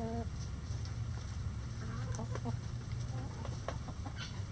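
Backyard chickens clucking: a short call right at the start, then scattered soft clucks through the middle, over a steady low background rumble.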